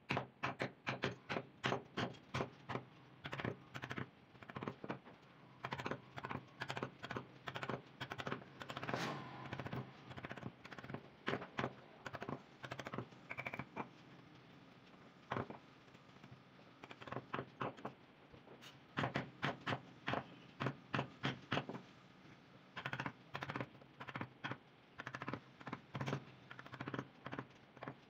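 Wood-carving chisel being tapped into a wooden panel: sharp knocks at about two to three a second, in runs with short pauses between them.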